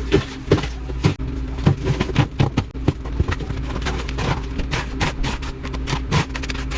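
A motor hums steadily under a rapid, irregular run of sharp knocks and scrapes.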